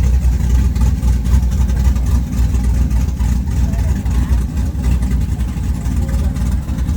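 Cammed LS V8 in a square-body Chevrolet C10 pickup idling with an uneven, choppy lope, the big camshaft leaving it gasping for air at idle.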